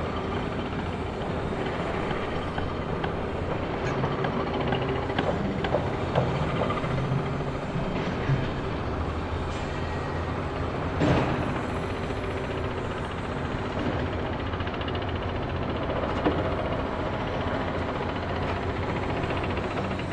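Construction site ambience: a steady engine drone from machinery, with scattered knocks and one louder knock about halfway through.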